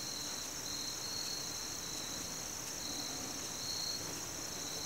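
Crickets trilling steadily in a high chorus, one band continuous and a slightly lower one pulsing on and off, over a faint even rush from a creek.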